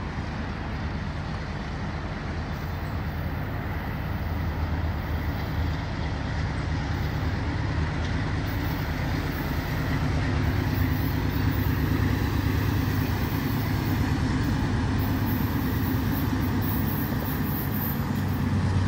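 Norfolk Southern diesel locomotive leading an intermodal train on its approach, its engine's low drone growing steadily louder.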